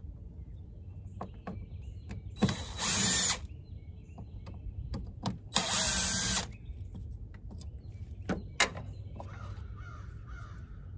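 Cordless drill-driver spinning in two short runs, each under a second, driving in the screws of a mass airflow sensor on the intake duct. Scattered sharp clicks of parts being handled, with a louder click about two seconds after the second run.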